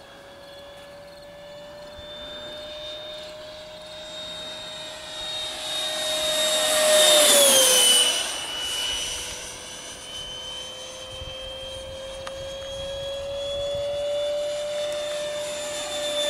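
Whine of the 90 mm electric ducted fan in a Lander RC MiG-17 jet at high speed as it makes a fast low pass: it swells to its loudest about seven seconds in, drops in pitch as the jet goes by, then fades. Near the end it builds again as the jet comes back round.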